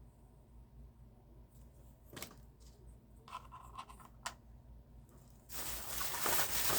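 Handling of die-cast toy car packaging: a few light clicks and taps, then a louder stretch of plastic-and-card rustling and scraping starting about five and a half seconds in.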